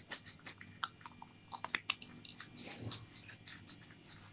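Plastic courier mailer bag crinkling as a child's hands handle it to open it: faint, irregular crackles and clicks, with a brief rustle a little before three seconds in.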